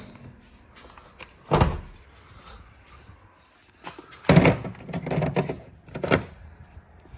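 A few hard thuds and clunks of things being handled and set down: one about a second and a half in, then a louder cluster of knocks around four to five seconds, and another just after six seconds.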